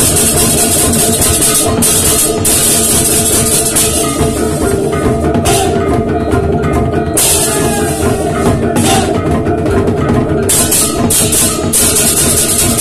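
Balinese baleganjur gamelan ensemble playing at full volume: kendang drums, interlocking ceng-ceng kopyak hand cymbals, and small hand-held and hanging gongs. The gongs ring steadily over the drumming, while the cymbal clashing swells and thins in stretches of a few seconds.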